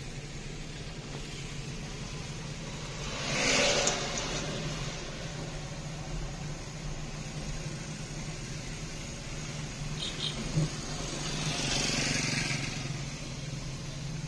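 Motorcycle engine of a kulong-kulong towing a car, running steadily ahead, heard from inside the towed car along with road noise. Twice the sound swells louder for about a second.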